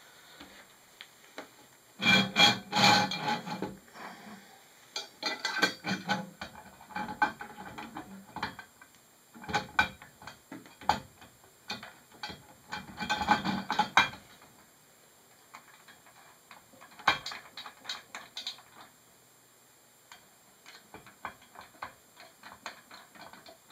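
Metal fasteners and aluminium extrusion parts of a CNC router frame being handled as bolts and nuts are hand-tightened: irregular bursts of clicking, rattling and rubbing. The loudest bursts come about two to four seconds in and again around thirteen seconds.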